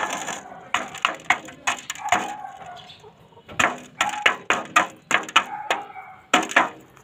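A gamecock pecking rice from a shallow metal basin: fast, irregular beak strikes on the metal, in quick runs of several taps with short pauses between.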